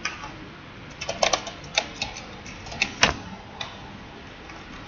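Computer keyboard keys being typed: a few short runs of sharp key clicks with pauses between them.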